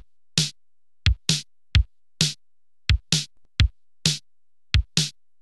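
Electronic drum-machine beat of sharp kick-drum and snare-like hits in a steady rhythm, with no melody.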